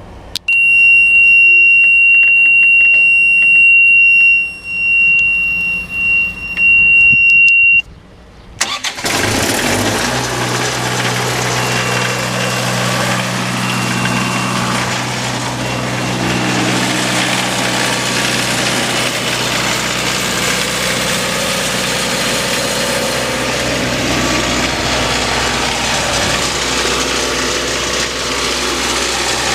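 Isuzu 4LE1 four-cylinder diesel engine of a sound-enclosed 20 kW MTU generator starting: a loud, steady high-pitched buzzer sounds for about seven seconds, broken off briefly a few times, then the engine cranks and catches at about nine seconds and settles into steady running.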